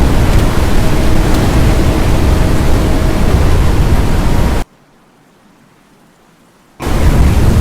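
Strong storm wind blasting the microphone: a loud, steady rush with heavy low rumble. It cuts out abruptly for about two seconds past the middle, then returns.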